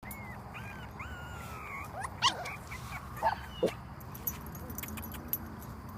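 Dachshund-mix puppies whimpering: a run of thin, high squeaks, with a few short, louder yelps around two and three and a half seconds in.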